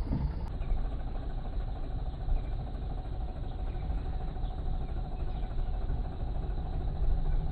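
Safari vehicle's engine running steadily, a low rumble with no change in pace.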